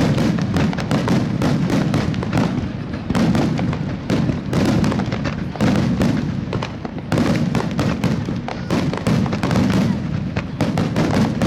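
Aerial fireworks in a rapid, unbroken barrage: many bursts and booms overlapping each other.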